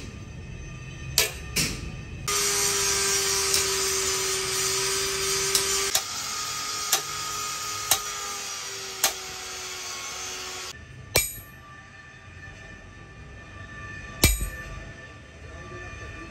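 Hammer striking a punch to engrave outlines into a metal truck panel: separate sharp metallic taps, spaced a second or more apart. From about two seconds in, a loud steady hiss with a humming tone runs under the taps and cuts off suddenly near eleven seconds.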